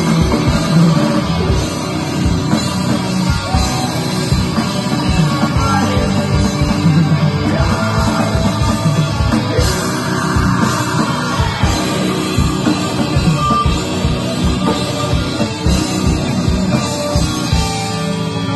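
A metalcore band playing live and loud: distorted electric guitars and bass over a continuous stream of drum-kit hits, with a vocalist on the microphone.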